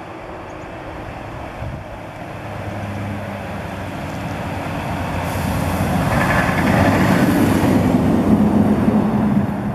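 Scania logging truck loaded with timber approaching and passing close by: its diesel engine running steadily under the rushing noise of its tyres on the snowy road, growing louder to a peak about three quarters of the way through.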